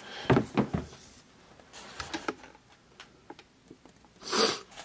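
Air Jordan 11 sneakers being handled and set on a cardboard shoebox: a few light knocks and taps about half a second in, small ticks around two seconds in, then a short rustling scrape near the end.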